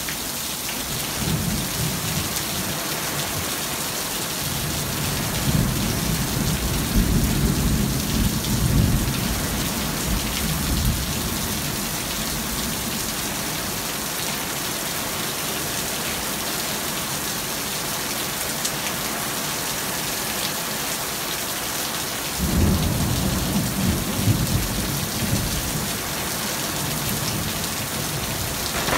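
Steady rain pouring down in a thunderstorm, with thunder rumbling twice. A long roll comes in the first third, and a second starts about three-quarters of the way through.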